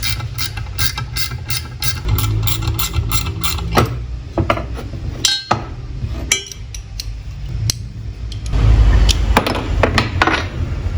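Hand tools working metal on a motorcycle crankcase, as a stud is being removed: a quick, even run of clicks at about four a second for the first three seconds or so, then scattered single knocks over a low rumble.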